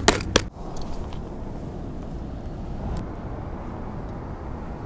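A few sharp plastic clicks right at the start, as a clear plastic tackle box is snapped open, then a steady low rumble of wind buffeting the microphone.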